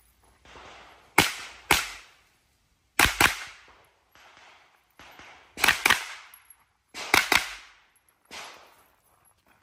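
Gunshots fired in quick pairs: four double taps, the two shots of each pair a fraction of a second apart and the pairs roughly two seconds apart.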